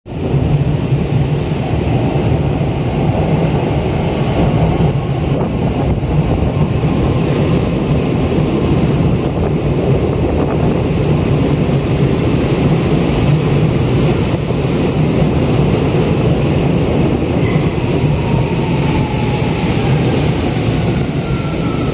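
Tokyo Metro 17000 series electric train arriving at an underground platform: a loud, steady rumble of wheels on rail and rushing air. Near the end, a falling whine is heard as the train slows.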